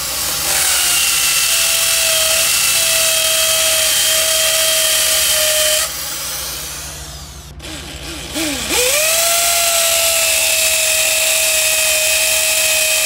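Corded electric drill running flat out with a steady high motor whine. About six seconds in it slows and winds down almost to a stop, then spins straight back up to full speed and runs steadily again.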